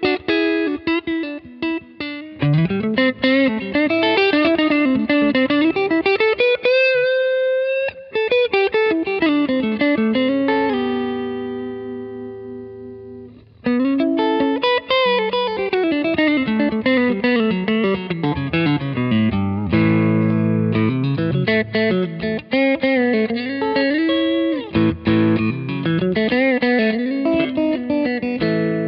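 Mexican-made Fender Telecaster with Cavalier She Wolf neck and Fat Lion bridge pickups, played through a Vintage Sound 22SC amp with an Eminence GA-SC64 speaker and LPD Cascade reverb. It plays bluesy single-note runs and double-stops, with a string bend about 6–8 seconds in. A chord rings out and fades around the middle before the runs resume.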